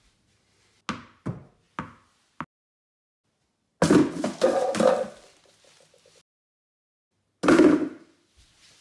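Tennis balls thrown at floor targets, knocking on a tiled floor and against a plastic bin: four light knocks in the first couple of seconds, then two louder clattering hits about four seconds in and near the end.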